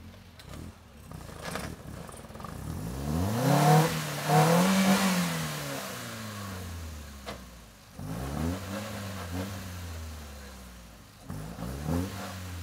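Nissan 240SX's engine being revved: one long rev that climbs, peaks twice about four and five seconds in and falls away, then two shorter groups of quick throttle blips later on.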